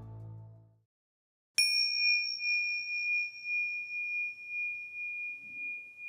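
Music fading out, then a small bell struck once about a second and a half in, ringing on as one high, steady tone that pulses slowly in loudness.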